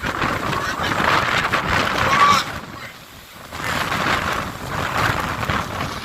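Hurricane wind rushing and buffeting the microphone in gusts, with a lull about three seconds in.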